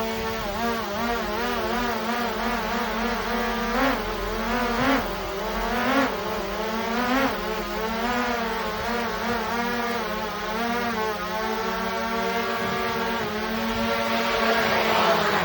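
Small DJI quadcopter hovering, its propellers giving a steady multi-toned whine whose pitch wavers and briefly rises several times as the motors adjust. It gets louder near the end.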